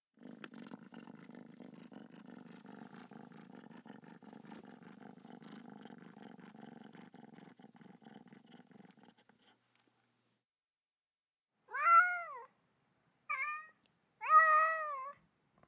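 Domestic cat purring softly for about nine seconds, then after a pause three meows near the end, each rising and falling in pitch, the middle one short.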